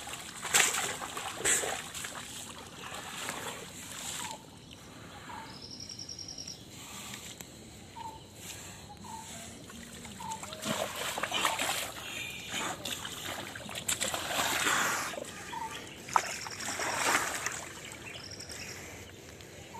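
Wet mud splashing and squelching in irregular bursts as a baby elephant is worked in a mud pool, with short high chirps and a few brief trills in the background.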